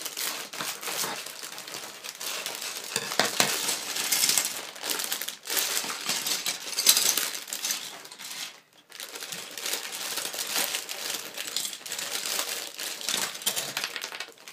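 Thin plastic Lego parts bag crinkling as it is cut open and emptied, with small plastic bricks clattering onto a tabletop.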